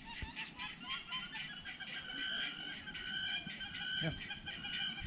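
Birds calling in a continuous rapid chatter of short repeated notes.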